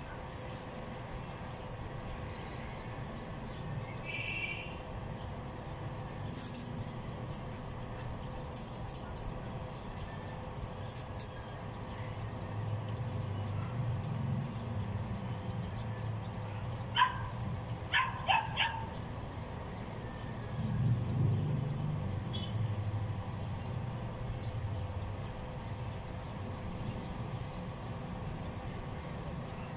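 A dog barking four times in quick succession, short sharp yips, over a steady low rumble.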